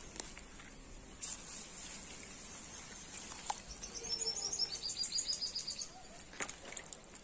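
Water sloshing and splashing in a bucket as hands rub freshly pulled radishes clean, with a few short clicks. Midway, a bird gives a rapid run of high chirps lasting about two seconds.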